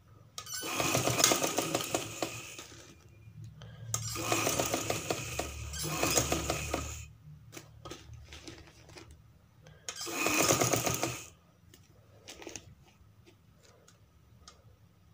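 Sewing machine stitching through fabric in three short runs of a few seconds each, the needle going in a fast even rhythm, with pauses between the runs.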